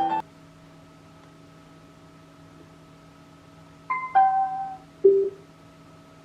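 Piano music cuts off at the start, leaving a faint steady electronic hum. About four seconds in, a Bluetooth speaker's prompt tones play: a short high beep, then a tone that steps down in pitch, then a single lower beep a second later, the kind of chime a portable speaker gives when powering off or changing mode.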